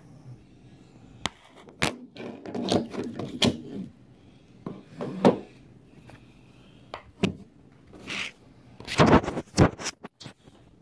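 Handling noise: a 3D-printed plastic spine model moved about on a desk, giving several sharp knocks and short bursts of scraping and rubbing.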